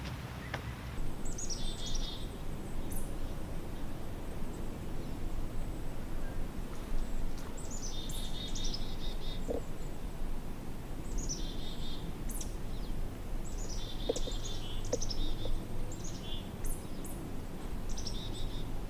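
A small songbird singing short high trilled phrases, each falling in pitch, repeated about every two to three seconds, over a low steady rumble of background noise.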